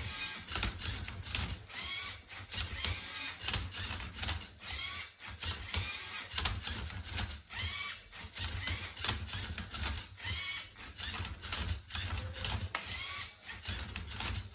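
Lego Mindstorms EV3 MindCuber robot solving a Rubik's cube. Its motors whine in short repeated bursts, rising and falling, as it turns and flips the cube, with plastic parts clicking and clacking throughout. It makes a lot of noise.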